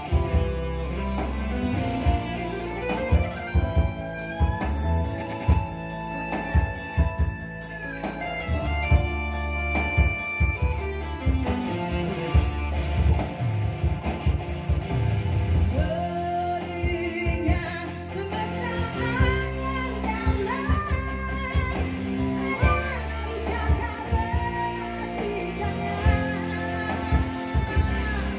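A song with singing, guitar and a steady drum beat, played through Yamaha DBR and DSR powered PA loudspeakers as a sound check.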